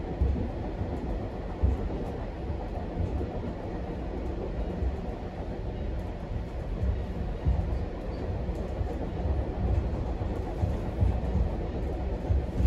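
GO Transit commuter train running along the track, heard from on board: a steady low rumble with a few louder knocks from the wheels over the rails.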